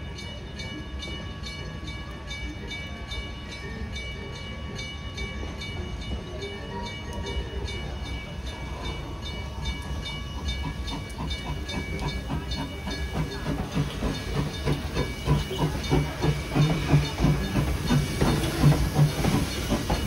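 0-6-4T tank steam locomotive with steam hissing, growing louder as it draws near. A repeated ringing tone sounds through the first half, and a low rhythmic pulsing of about two beats a second builds toward the end.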